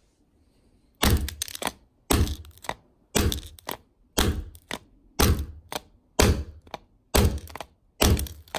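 Steel hammer head striking the cracked glass back of an iPhone 4 in a plastic tray: eight hard blows about a second apart after a quiet first second, each followed by a lighter second knock.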